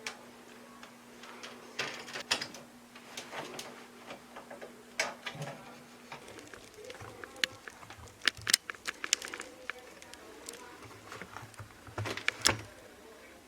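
Irregular clicks and knocks of hard parts being handled and set down while a front-load washing machine is taken apart, with a faint steady hum in the first half.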